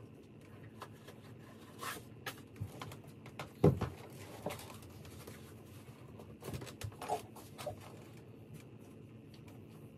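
Scattered rustles and light knocks of an Off-White x Nike Blazer Low sneaker being handled and pulled on, with one louder thump about three and a half seconds in.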